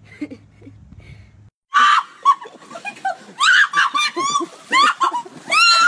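A woman shrieking and laughing in a rapid string of short high-pitched cries, starting about a second and a half in after a faint low hum.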